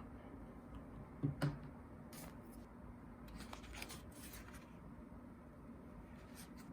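Quiet room with a faint steady hum, a soft knock about a second in, then a few light scratchy rustles.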